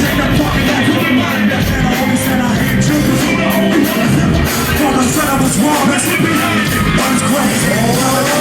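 Loud live rock and rap band music with shouted vocals, a long held tone rising in pitch near the end.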